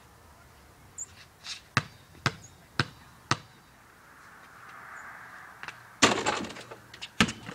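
A basketball is dribbled on pavement, about four bounces half a second apart. About six seconds in, the shot strikes the hoop with a sharp bang and a short metallic rattle, and the ball bounces once more on the pavement near the end.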